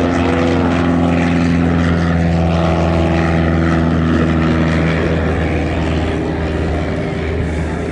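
Piper J-3 Cub's engine and propeller running at full power as the plane lifts off from the rack on top of a pickup truck and climbs away, a steady engine note that fades slightly near the end.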